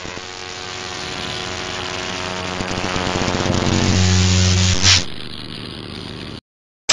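Electric buzzing sound effect with a low hum, growing louder to a short swell about five seconds in, then dropping back and cutting off abruptly shortly before the end.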